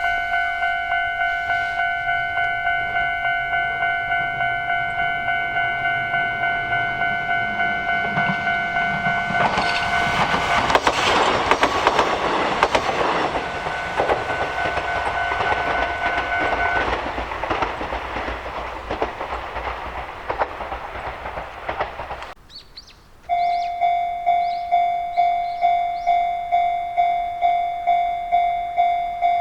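Japanese railroad crossing's electronic warning bell ringing in a steady 'kan kan' about twice a second, while an electric train passes through and drowns it out for about ten seconds; the bell stops partway through the passing. After a sudden cut, a different crossing bell with a slightly different tone starts ringing at the same pace.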